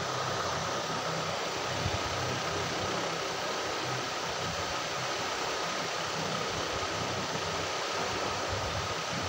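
A steady, even hiss with a faint high hum that does not change.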